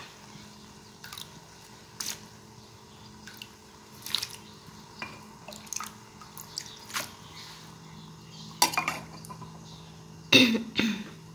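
Water heating in an electric cooking pot with pieces of snakehead fish, giving scattered small pops and drips over a faint steady hum, with a louder clatter near the end.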